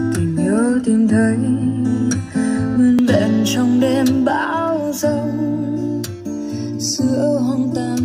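A song with strummed acoustic guitar and a singing voice, played through portable Bluetooth speakers: an LG XBOOM GO PL7, then a JBL Xtreme 3.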